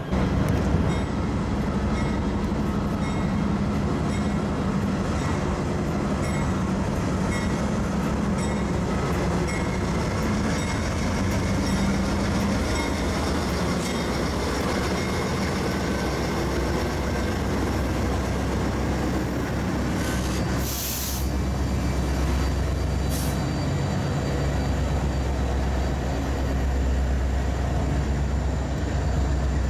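Union Pacific freight train passing close: the diesel locomotives' engines running, then double-stack intermodal well cars rolling by with a steady, heavy rumble. A short hiss about twenty-one seconds in.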